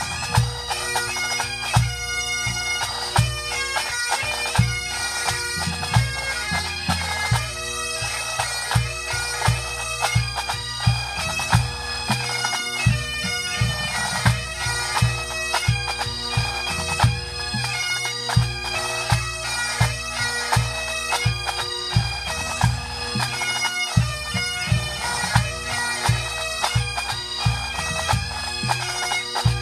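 Pipe band playing: Great Highland bagpipes with steady drones under the chanter melody, over snare, tenor and bass drums, with a regular bass drum beat.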